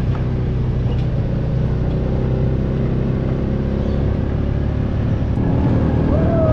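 Engine of a side-by-side off-road utility vehicle running steadily as it drives along a dirt track.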